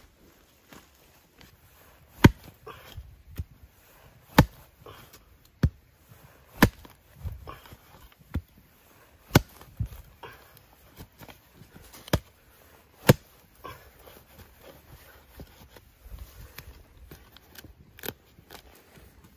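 Long-handled digging hoe chopping into soil at the base of a spring bamboo shoot to dig it out: about nine sharp, irregularly spaced strikes, with soil and leaf litter rustling between.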